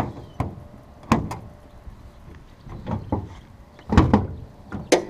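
Plastic-and-metal clicks and clunks of flush-mount hood latches being unlatched, then the car's hood knocking as it is lifted. The strokes come irregularly, the loudest cluster about four seconds in and a last sharp one just before the end.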